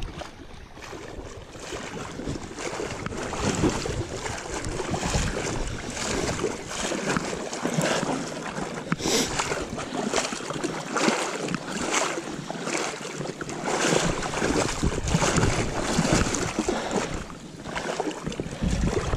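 Water swishing and splashing around waders as someone wades through a shallow river, surging with each stride, with wind on the microphone.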